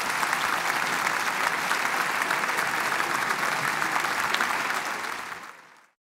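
Audience applauding: a steady patter of many hands clapping that fades out and stops near the end.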